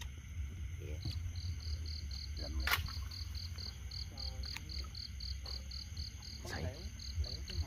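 A cricket chirping in a steady rhythm, about four to five high chirps a second, with one sharp knock about a third of the way in.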